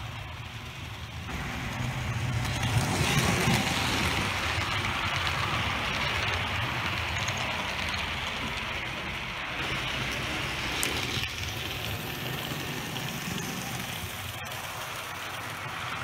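Model train rolling along its track: a steady rumble and rattle of small metal wheels on the rails. It grows louder about a second in as the passenger cars pass close by.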